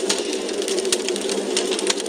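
Wood fire crackling in a fireplace: many irregular sharp snaps and pops over a steady low rush.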